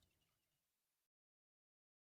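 Near silence: a pause in the audio track.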